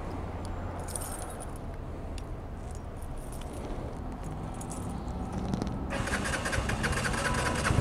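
Keeway Superlight 125's single-cylinder engine running low and steady, joined about six seconds in by a dense metallic jangling rattle.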